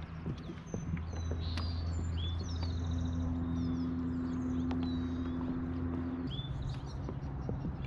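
Birds chirping, with quick up-and-down calls and a short trill, over a low steady hum that shifts pitch about a second in and again near the end, with a few light clicks.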